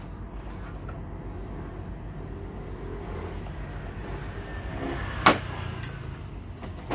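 Plastic scooter footboard panel being worked into place with a metal tool over a steady low rumble, with one sharp click about five seconds in and a lighter one just after.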